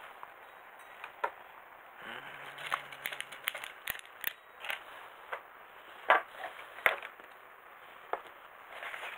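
Hands handling small plastic robot-kit parts and packaging on a tabletop: irregular clicks and taps, with some crinkling, the sharpest about six and seven seconds in.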